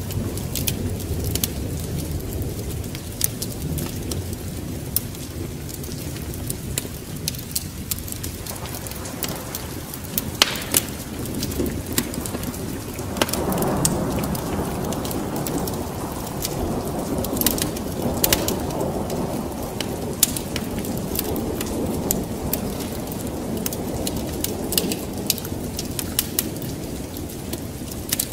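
Wood fire crackling with frequent sharp pops over steady rain, while a low rumble of thunder swells about halfway through and slowly fades.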